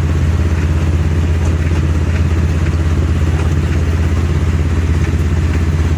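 Vehicle engine and road noise running steadily: a continuous low drone with a fast, even pulsing.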